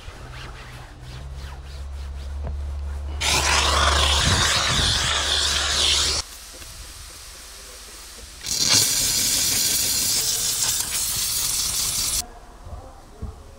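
Handheld steam cleaner nozzle hissing in two bursts of about three to four seconds each, a couple of seconds apart, as steam is sprayed onto a car's interior trim and floor mat. A low hum runs beneath the first burst.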